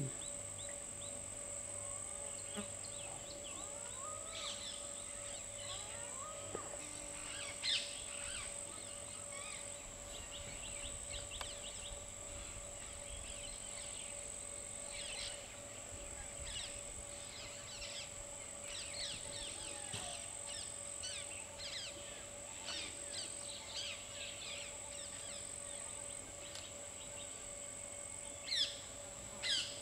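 Forest ambience full of birds chirping and calling, with a few louder calls about eight seconds in and again near the end, over a steady thin high-pitched tone.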